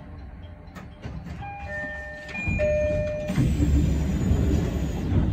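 A short electronic chime of a few stepped tones, then, about three seconds in, a louder low rumble from the stopped train with a faint high whine slowly falling in pitch.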